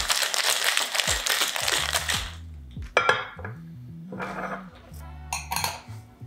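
Ice rattling hard inside two cocktail shakers shaken at once, stopping about two seconds in. The shakers and two glass coupes are then set down on a marble counter with a few sharp knocks and clinks.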